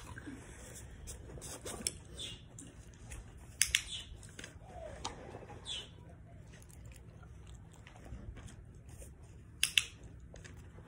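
Black Labrador crunching small treats taken from a hand: a handful of sharp crunches and clicks, the loudest a quick pair near the end, over a low steady hum.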